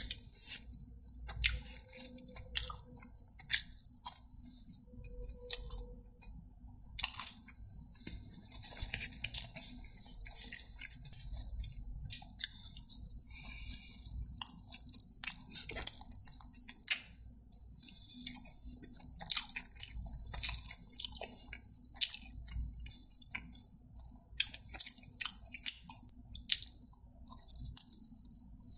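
A person eating close to the microphone: repeated bites and chewing, with crisp crunches and wet mouth clicks at an uneven pace.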